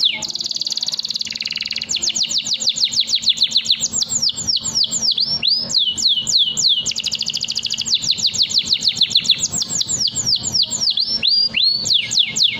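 Domestic canary singing a long unbroken song: fast buzzy trills alternating with rapid runs of high, downward-sweeping notes, repeated many times a second.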